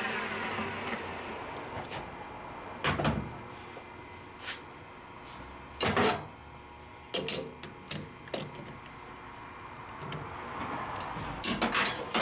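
A machine motor spinning down and falling in pitch, then a string of irregular sharp metallic clunks and knocks as parts and tools are handled.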